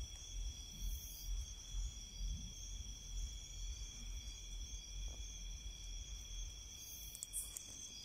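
Steady, high-pitched trilling of night insects such as crickets, several tones held unbroken, over a low rumble.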